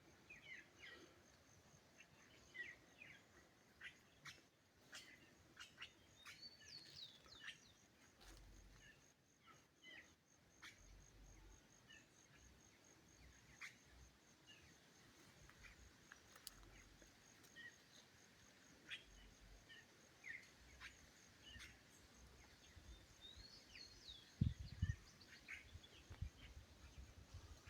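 Faint wild birdsong: many short chirps and quick whistled notes from several birds, scattered and irregular, over a steady thin high-pitched hum. A few low thumps near the end.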